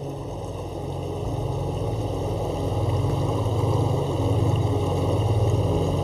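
A boat's engine running steadily with a low, pulsing drone, growing louder over the first few seconds.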